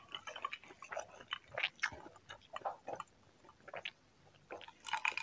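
Close-miked mouth sounds of someone chewing braised pork belly: many short wet clicks and smacks. After a brief lull, a louder cluster near the end as she sips from a glass jar.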